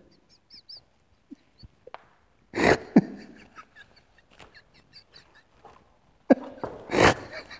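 A man's stifled, breathless laughter: faint squeaks and catches of breath, then two loud breathy bursts of laughter, one about two and a half seconds in and one near the end.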